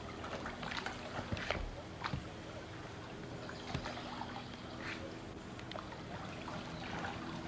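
Water splashing and trickling lightly in short scattered splashes, over a faint steady hum.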